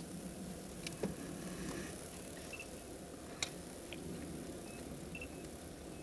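Steady low outdoor background rumble with a few sharp clicks, the loudest about three and a half seconds in, and three faint, very short high pips.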